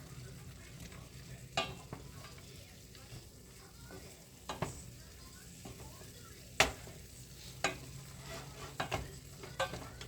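Stir-frying in a pan: a spatula knocking against the pan six or so times over a soft sizzle, with a steady low hum underneath.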